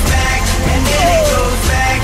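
Background music: a pop song with a steady beat.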